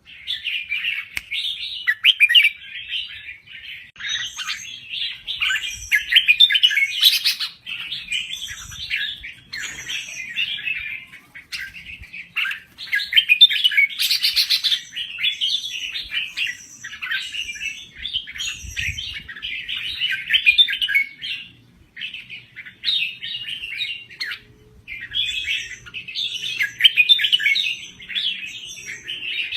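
Red-whiskered bulbul singing: a long run of quick, warbled chirping phrases, broken by short pauses of about a second.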